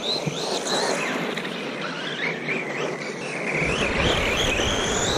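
FTX Outlaw RC buggy's brushless electric motor whining, its pitch rising and falling again and again with the throttle, over tyres crunching on gravel. The low rumble grows louder from about three and a half seconds in as the buggy comes close.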